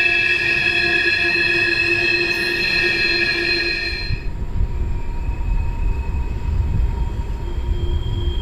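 Freight train of coal hoppers on a sharp curve, its wheel flanges squealing in several steady high tones. About four seconds in the sound changes to a low rumble of the cars rolling by, with the squeal fainter.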